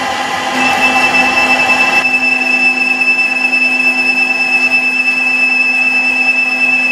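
Colchester Bantam lathe turning steel with a carbide tool, its drive humming steadily. Under a second in, a loud, steady high-pitched squeal sets in from the cut. It doesn't sound very clever, and it is typical of the tool chattering in the cut.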